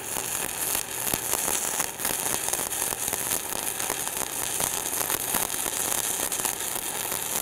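Stick-welding arc: a flux-coated electrode burning against steel plate at 160 amps, a steady crackling sizzle with small pops.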